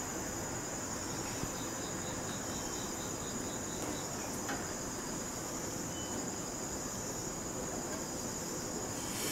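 Insects chirping steadily in a constant high trill over an even background hiss. From about two seconds in, a fainter quick pulsing chirp repeats about five times a second for some two seconds.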